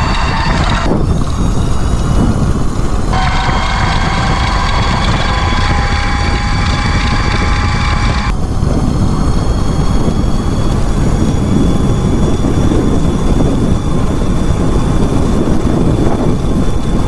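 QS138 electric motor on a mini bike whining at full throttle near top speed, around 79 mph, over heavy wind rush on the microphone. The whine drops out about a second in, returns about two seconds later, and turns fainter and higher about eight seconds in.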